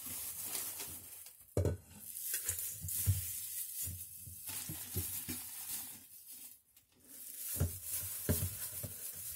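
A gloved hand rustles a plastic bag while grabbing handfuls of shredded white cabbage and drops them into a steel mixing bowl: irregular crinkling and rustling with soft thuds, a sharper crinkle about a second and a half in and a short lull a little past two-thirds of the way through.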